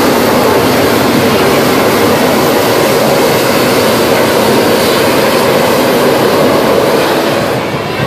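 Hot-air-balloon propane burners firing, a loud steady roar of flame that eases off slightly near the end.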